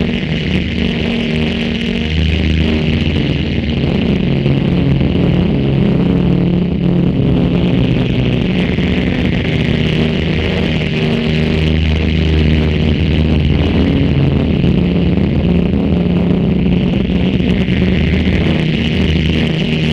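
Loud, dense electronic drone played from a laptop: layered low pitched tones over a hiss higher up that swells and fades a few times.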